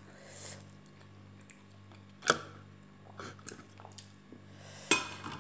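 Chewing mouth sounds of someone eating prawns, with scattered small clicks and two sharper clicks, one about two seconds in and one near the end, over a low steady hum.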